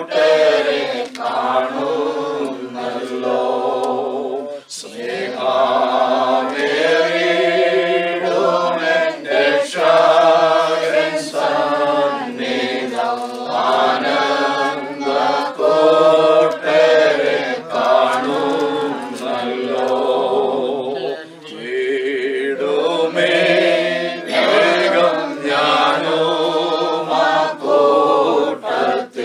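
A small group of mixed voices singing a hymn together, unaccompanied, in long sustained phrases with short breaths between them.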